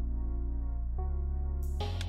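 Soft ambient background music: sustained synth-like chords that change about a second in, with a brief hissing swell near the end.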